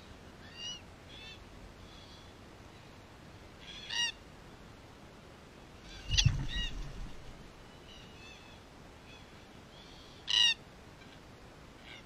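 Red-tailed black cockatoos giving short, harsh calls several times, loudest about four seconds in and again near the end. About six seconds in, a thud and a burst of flapping close by as one bird takes off from the concrete block, together with another call.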